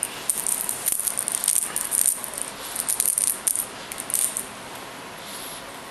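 Cat wand toy shaken and whipped around, making rapid high clicks in short bursts that stop about four and a half seconds in.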